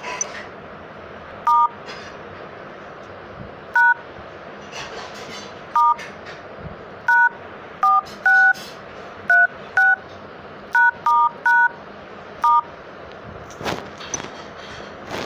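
Sony Xperia XA Ultra's dialer keypad touch tones: twelve short dual-tone DTMF beeps at uneven intervals, keying the hidden code *#*#4636#*#* that opens Android's testing menu. A steady background hiss runs under them, with a few faint clicks near the end.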